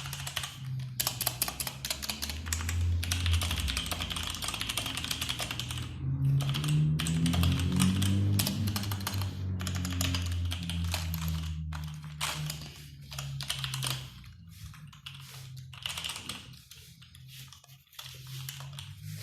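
Typing on a Nisuta 60% mechanical keyboard with Outemu Red linear switches: fast runs of keystrokes broken by brief pauses.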